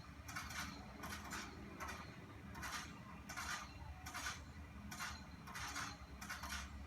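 Light handling noise: short, soft scrapes or taps about one every three-quarters of a second, over a low steady hum.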